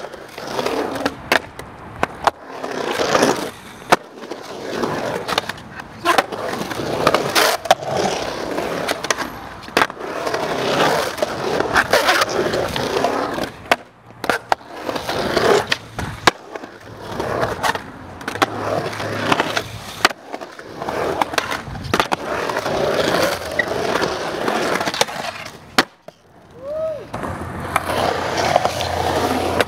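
Skateboard urethane wheels rolling over rough concrete, with repeated sharp clacks and slaps of board pops and landings and scrapes of the trucks on the coping.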